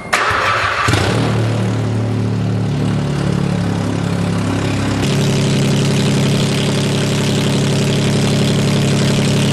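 Smart fortwo's three-cylinder engine starting and then idling through an exhaust with no muffler: really loud. It turns over roughly for about a second, then settles into a steady idle whose note changes about halfway through.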